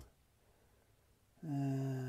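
Dead silence, then about a second and a half in a man's voice holding one long hesitation sound, a drawn-out 'errr', its pitch sinking slightly.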